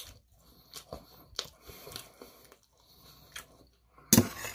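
A person chewing a mouthful of sweet and sour chicken, with faint irregular wet clicks and crunches. A louder sudden noise comes near the end.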